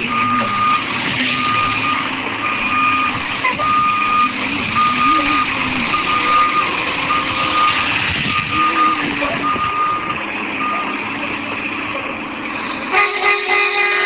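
Front-loader garbage truck's diesel engine running, its pitch rising and falling, with the reversing alarm beeping about once a second for most of the stretch. Near the end the truck's horn sounds for about a second.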